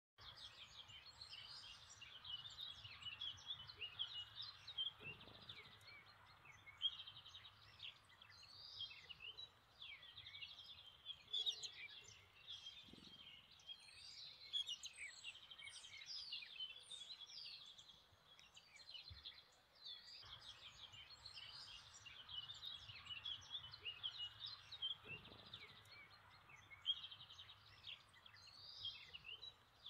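Woodland birdsong: several songbirds singing and calling at once, an unbroken tangle of chirps, trills and short whistles, over a faint low rumble.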